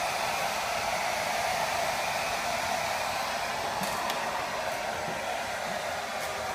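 Fukugen 'restoration' hair dryer blowing steadily, with a few faint clicks in the second half.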